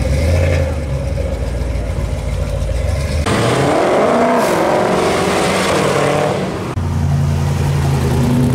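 Three V8 engines in turn, with abrupt changes between them. First a steady low idle from a Batmobile replica. About three seconds in, a Ford Shelby GT500's supercharged 5.2-litre V8 revs as it pulls away, and near the end a supercharged 1960 Chevrolet's V8 idles with a steady low rumble.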